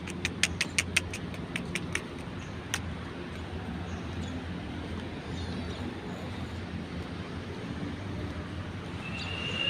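Steady low rumble of vehicle and street noise, opening with a quick run of sharp clicks over about two seconds, one more click shortly after, and a brief high-pitched tone near the end.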